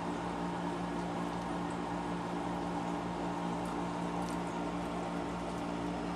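Steady electrical or fan hum of a small room, with a few faint ticks.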